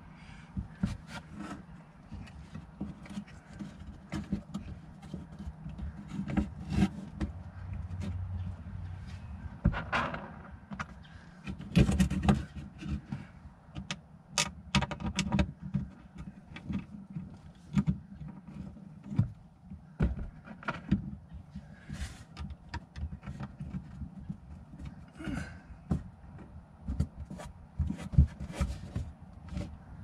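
Irregular small clicks, taps and knocks of a dimmer switch in its plastic mounting bracket being worked by hand into its cutout in a wooden wall panel, over a steady low hum.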